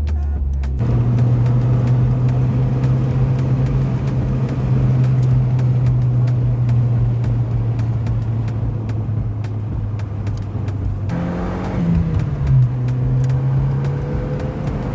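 Dodge SRT-4's turbocharged 2.4-litre four-cylinder engine pulling under way. Its note steps up in pitch about a second in and holds steady, then near the end briefly climbs and drops back.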